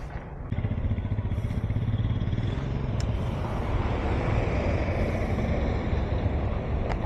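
Royal Enfield Meteor 350 single-cylinder engine running while riding, with wind and road noise. It gets louder about half a second in, then holds steady.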